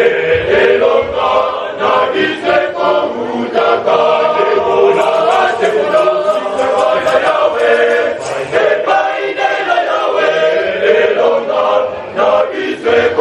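A choir of young men singing together in full voice, continuously.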